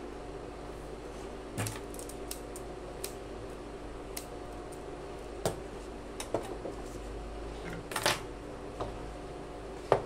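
Scattered short clicks and knocks of thread cones and scissors being picked up and set down at an overlock machine, the sharpest just before the end, over a steady low machine hum.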